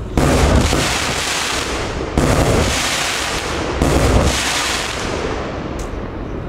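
A 131-shot Category F2 compound firework cake firing three loud shots about two seconds apart, each bang trailing off over a second or more. A short sharp crack follows near the end.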